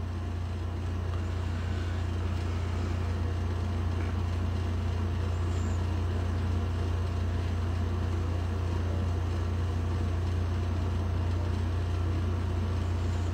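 Steady low hum with a faint even hiss over it, unchanging throughout.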